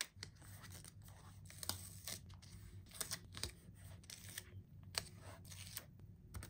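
Paper stickers being peeled off their backing sheet and pressed down onto a sticker-book page. The sound is a string of irregular soft crackles and rustles, with a few sharper snaps, one right at the start and another about five seconds in.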